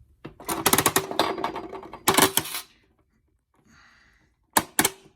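Coin-operated bouncy ball vending machine's crank being turned, its mechanism clicking rapidly for about two seconds, then two sharp clacks near the end.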